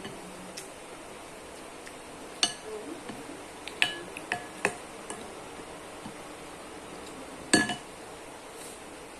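Eating utensil clinking against a dish: about five sharp clinks with a short ring, the loudest near the end.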